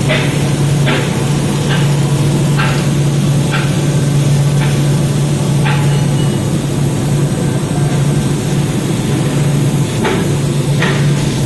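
Robotic welding equipment running: a steady low hum, with short hissing bursts about once a second for the first six seconds and again near the end.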